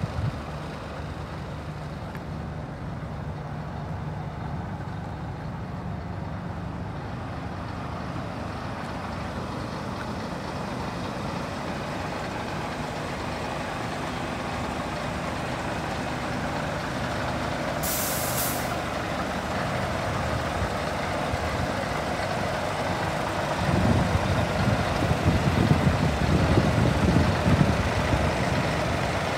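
Scania T124 tractor unit's 12-litre inline-six diesel idling steadily, with a short hiss of compressed air released about two-thirds of the way through. A louder low rumble comes in near the end.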